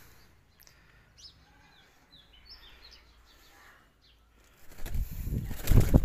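Faint small-bird chirps in the background, then about two-thirds of the way in a loud stretch of rustling and thumps as an Aseel hen is grabbed by hand and her feathers are handled.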